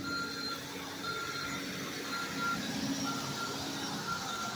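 Garbage truck's reversing alarm beeping about once a second over the low hum of its running engine.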